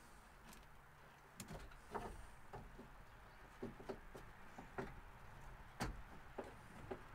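Faint, irregular clicks and knocks of hand tools and metal parts being handled, with one louder knock near the end.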